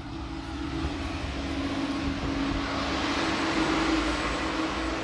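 Engine noise of a passing vehicle: a broad rush that swells to a peak about four seconds in and then eases off a little, over a steady low hum.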